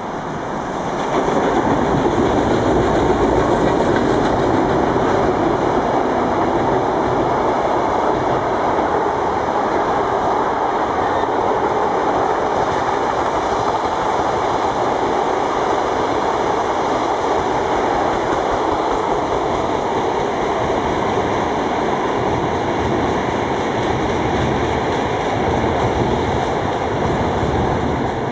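Green electric commuter train (elektrichka) passing along the line, its wheel-on-rail noise swelling about a second in and then holding steady and loud.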